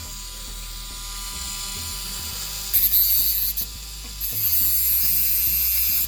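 Dremel rotary tool running with a steady whine and grinding down a small worn part of an RC car's drivetrain, in two loud bursts of harsh hiss: a short one about three seconds in and a longer one from about four seconds until just before the end.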